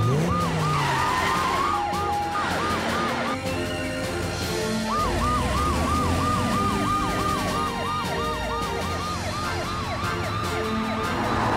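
Cartoon emergency-vehicle sirens sounding in quick rising whoops, about three a second, over background music, with a pause of about a second and a half near the middle.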